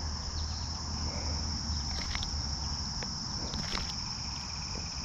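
Steady high-pitched drone of insects, with a low rumble beneath and a few faint clicks.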